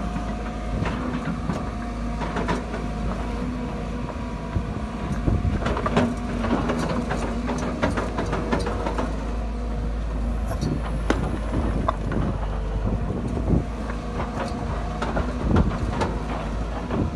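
Sumitomo SH210 hydraulic excavator's diesel engine running steadily as its bucket digs into stony ground, with rocks knocking and clattering against the bucket and each other throughout.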